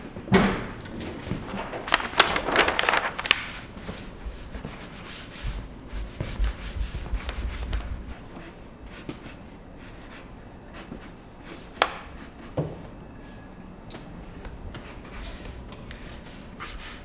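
A pen scratching and rubbing on drawing paper at a drawing board. Louder rustling and shuffling of movement comes in the first few seconds, and two sharp knocks come about twelve seconds in.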